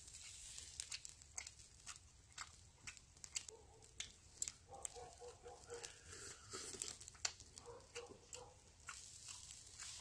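Faint scattered crackles and clicks: a wood fire burning under a grill, and grilled water deer rib meat being torn off the bone with the teeth and chewed.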